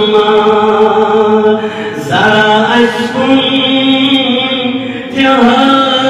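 A man's solo voice singing a Kashmiri naat, drawing out long, held notes, with short breaks about two seconds in and again about five seconds in.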